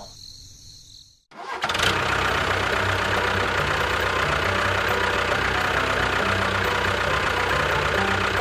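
Engine sound for a miniature model tractor, cutting in about a second and a half in and then running steadily.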